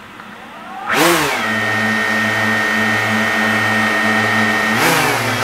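DJI Mavic Air quadcopter's motors revving on a table with Master Airscrew low-noise propellers fitted. They spin up quickly about a second in, hold a steady high-pitched whine, and the pitch starts to rise and fall near the end. These propellers give a lower-pitched whine, which makes the drone sound softer.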